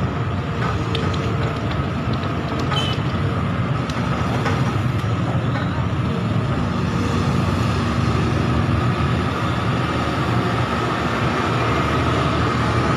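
Excavator's diesel engine running steadily, a continuous low rumble with a few faint clicks about three seconds in.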